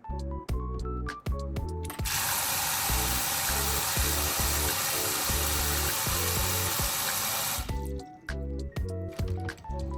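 Water running from a kitchen tap, a steady hiss that starts about two seconds in and cuts off suddenly about six seconds later. Background music with plucked notes and a steady bass plays throughout.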